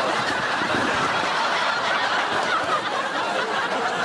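Studio audience laughing, a steady wave of many people's laughter.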